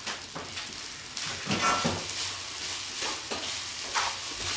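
Fried rice with chicken and onion sizzling in a nonstick frying pan as a wooden spatula stirs and turns it, with repeated scrapes of the spatula against the pan.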